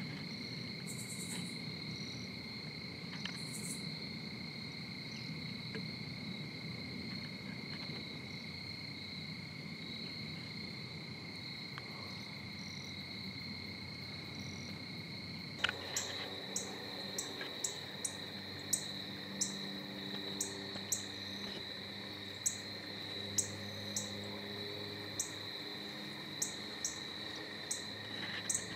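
Evening insect chorus of crickets: a steady high drone that runs without a break. About halfway through the sound shifts abruptly, and short, high chirps start repeating about once or twice a second over the drone.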